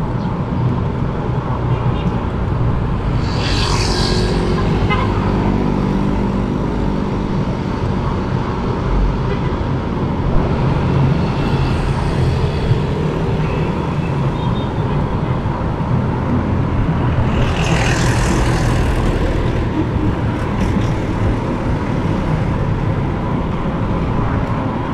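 Steady rumbling wind on the microphone and street traffic heard from a moving electric bike. Two louder hissing swells rise and fade, about four seconds in and again near eighteen seconds.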